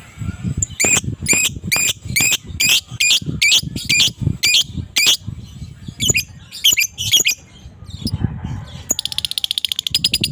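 Lovebird calling: a run of about ten loud, harsh shrieks at two or three a second, a few more after a short pause, then near the end a fast rattling chatter, the drawn-out 'ngekek' trill of an adult male fighter lovebird.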